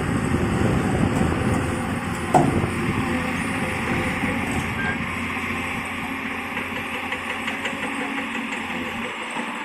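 Old Komatsu PC200 excavator's diesel engine running steadily, with a single metallic knock about two seconds in.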